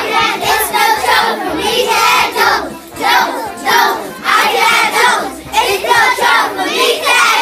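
A group of young children singing together loudly in short rhythmic phrases, over a backing song with a steady low beat.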